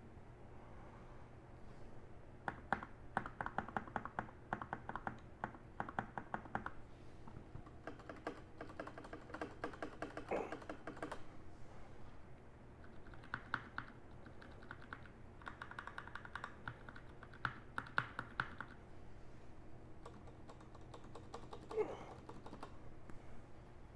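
Typing on a mechanical keyboard: runs of rapid key clicks in several bursts with short pauses between.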